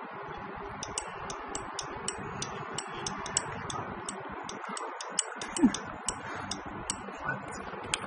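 A water heater's solenoid valve being pulsed from a 3 V battery on its instantaneous (pull-in) coil: a run of light clicks, about three a second, with one louder short squeak a little past halfway. The valve is not staying held in.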